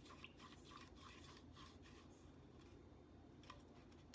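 Faint, irregular scraping and ticking of a utensil stirring citric acid into water in a paper cup to dissolve it, thinning out in the middle with one more tick near the end.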